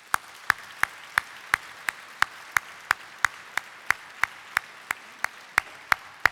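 Audience applauding, with loud, sharp hand claps about three a second from a man clapping close to a podium microphone.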